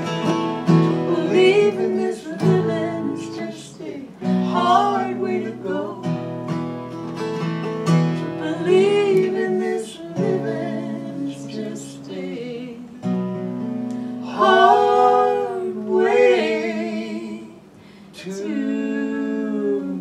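Acoustic folk music: two acoustic guitars strummed and picked together, with a voice singing over them.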